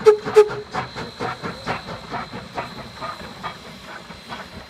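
Cumbres & Toltec narrow-gauge K-27 steam locomotive No. 463 chuffing past with hissing steam: a quick, even beat of exhaust strokes that grows fainter toward the end, with two loud sharp strokes right at the start.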